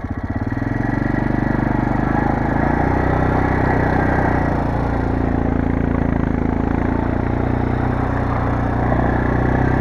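Kymco MXU 400 ATV engine running steadily while the quad rides along, its level building over the first second and then holding even.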